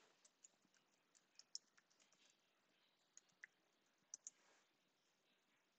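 A few faint, scattered clicks of computer keyboard keys being typed, about seven in all over the first four and a half seconds, amid near silence.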